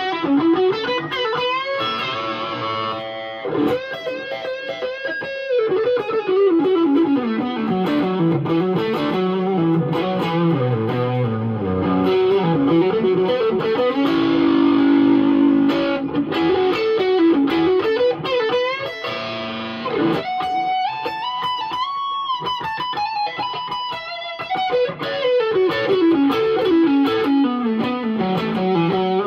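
Telecaster-style electric guitar, original pickups on rewired budget electronics, played through an amp with some overdrive: melodic lead lines with a long descending run, and bent, vibratoed notes about two-thirds of the way through.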